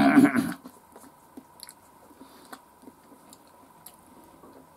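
Close-up chewing and wet mouth sounds of a person eating fried chicken with his fingers, with small scattered clicks. It opens with a brief, loud voice sound of about half a second.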